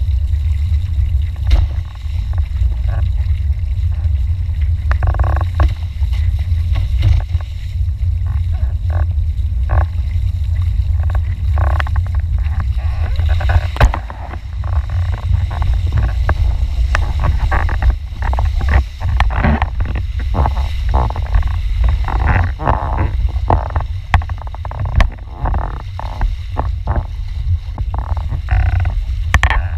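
Heavy wind rumble on a board-mounted action camera's microphone while windfoiling, with many short splashes and knocks of water and spray against the board, coming more often in the second half.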